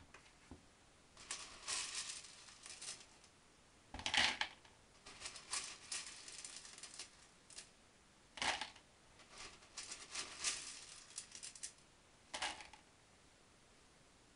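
Expanded clay pebbles (LECA) dropped by hand into a glass vase around an orchid's roots, rattling and clinking against the glass and each other in several short bursts with pauses between, the loudest about four seconds in.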